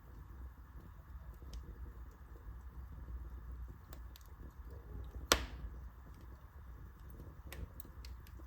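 Wood fire burning in a fireplace: a low steady rumble of flames with sparse small crackles, and one loud sharp pop from the burning wood about five seconds in.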